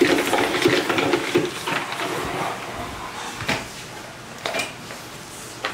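Spin mop being worked in its plastic bucket's spinner basket, a quick rattling whir for the first second or so. Then the mop is pushed over a tiled floor with scraping and a few sharp knocks.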